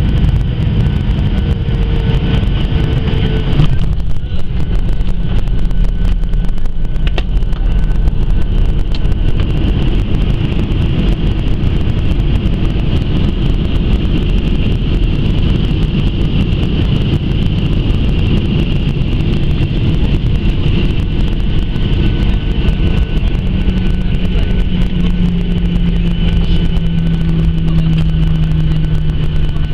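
Jet airliner's engines and rushing air heard from inside the cabin on landing: a loud, steady rumble with a high engine whine. About four seconds in the sound changes abruptly as the wheels meet the runway in a firm touchdown. The rumble of the landing roll follows, with a low hum slowly falling in pitch near the end.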